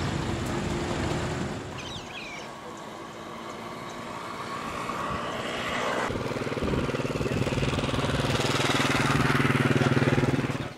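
A motor vehicle's engine running with a steady hum. It dips about two seconds in, grows louder over the second half, and cuts off abruptly at the end.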